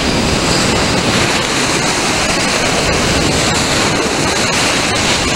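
Ocean surf: a broken wave's whitewater washing in around a pile of sand in the shallows, a loud, steady rush of foaming water.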